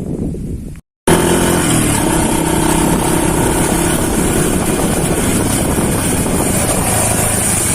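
A motorcycle engine running steadily under heavy wind noise on the microphone, starting abruptly about a second in after a brief dropout.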